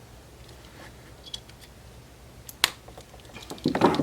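Handling noise from working the plug and cord: a few faint ticks, one sharp click about two and a half seconds in, then a short louder clatter near the end.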